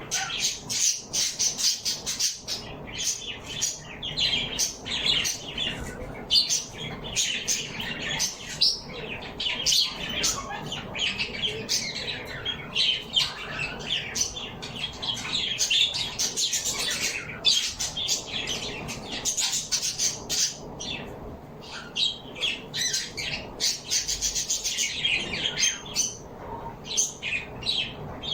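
A flock of birds chirping and squawking continuously, many short calls overlapping, with occasional wing flapping.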